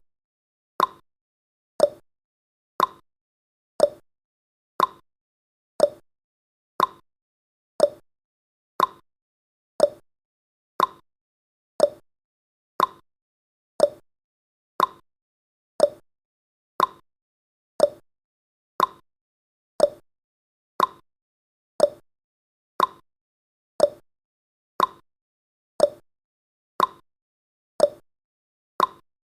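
Clock-tick sound effect of a countdown timer: short, sharp ticks at a steady one per second.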